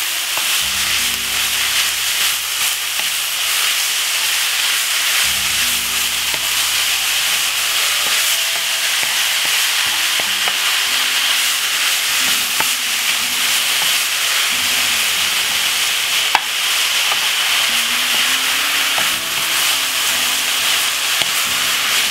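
Minced beef with onion, garlic and spring onion sizzling in olive oil in a non-stick frying pan, stirred and turned with a wooden spoon. One sharp tap comes about two-thirds of the way through.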